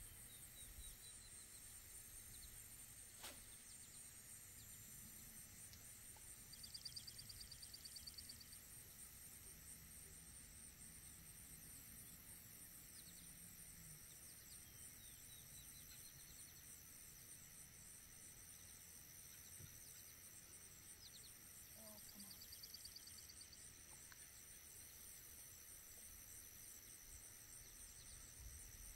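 Near silence with faint outdoor ambience: a steady, high-pitched insect trill, a few short bird calls, including two quick buzzy trills, and a single sharp click about three seconds in.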